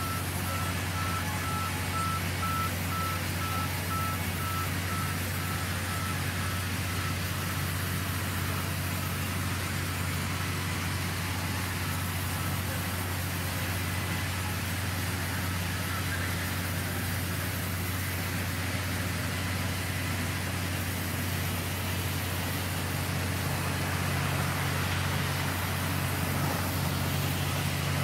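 Band sawmill running steadily, a low motor hum under an even hiss as the blade cuts through a log. A faint high beep repeats through the first half.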